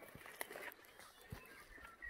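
Quiet bush ambience: scattered soft knocks and rustles, like footsteps in undergrowth, with faint birdsong.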